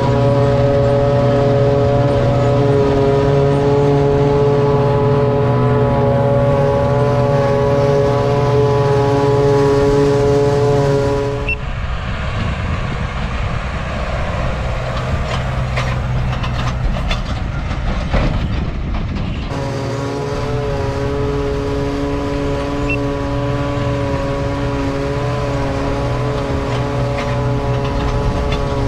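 Tractor and PTO-driven forage harvester running hard while chopping hay, a loud, steady mechanical whine. About 12 seconds in the whine drops out for several seconds, leaving a rougher rumble with a few clicks, then returns.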